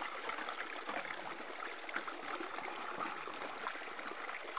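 Water spraying and splashing out of an uncapped port on a hydraulic ram pump, a steady rush.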